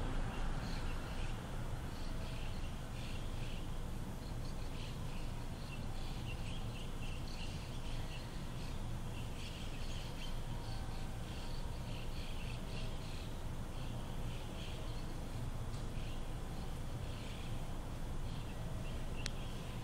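Many small birds chirping, with short high calls repeating in clusters throughout, over a steady low background rumble.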